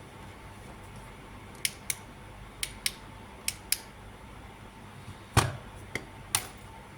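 Sharp clicks in three quick pairs, then a heavier knock and two more clicks, over a low steady hum: small hard objects being handled or pressed.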